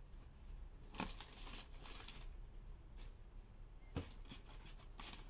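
Tissue paper rustling and crinkling as a sneaker is handled into its cardboard shoebox, with two light knocks, about a second in and about four seconds in.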